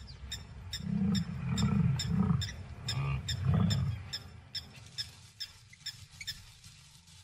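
African buffalo herd grunting: about five low grunts in a row between about one and four seconds in, over a regular high ticking two or three times a second.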